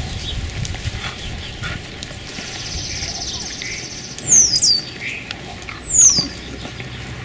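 Two short, very high-pitched animal calls, each falling sharply in pitch, about four and six seconds in, after a rapid high trill a little earlier.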